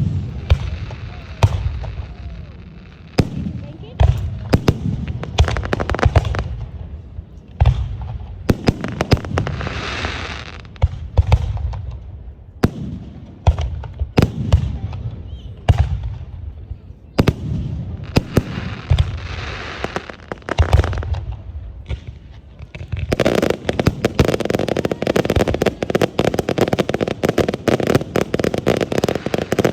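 Aerial fireworks display: shells bursting with deep booms every second or two, some trailing a crackling hiss. About three quarters of the way through, it turns into a dense, rapid barrage of pops and crackles.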